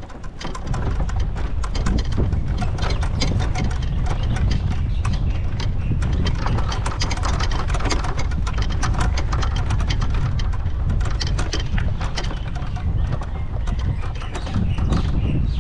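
Wind rumbling on the microphone, with a dense run of irregular clicks and rattles from the camera as it moves over the fairway.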